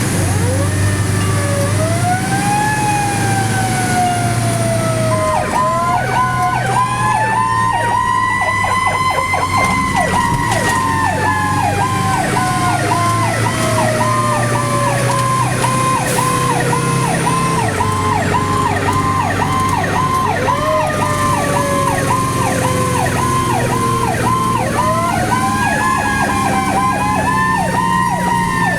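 Fire engine sirens on an emergency run: a wailing siren rises quickly and falls slowly away, several times over. Alongside it a second siren pulses about twice a second from about five seconds in, over the truck's low engine drone.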